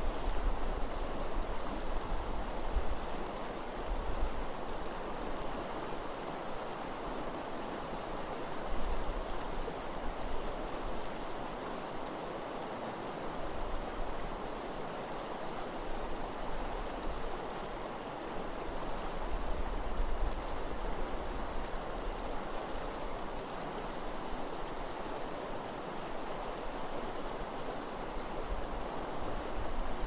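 Eel River running steadily over shallow gravel riffles, a constant rushing of water. Wind on the microphone adds a low rumble now and then.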